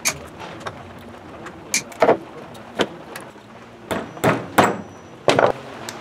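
Stainless steel wire being bent by hand around nails in a small wire-forming jig: a run of irregular sharp clicks and taps, heaviest and most frequent in the second half.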